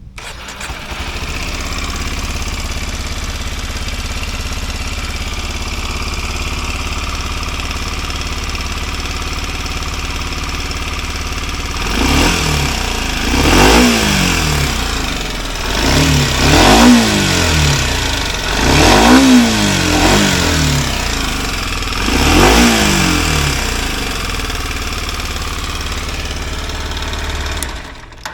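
Kawasaki Ninja 125's single-cylinder four-stroke engine running through its stock muffler. It idles steadily, then is blipped up about five times, each rev rising and dropping back, then settles to idle before cutting out near the end. Quiet for a motorcycle, like a normal 4-stroke 125.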